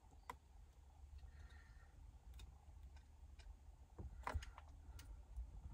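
Faint, scattered clicks and taps of plastic connectors and trim as the replacement Uconnect touchscreen's wiring clips are handled and plugged in at the dash, with a cluster of louder clicks about four seconds in.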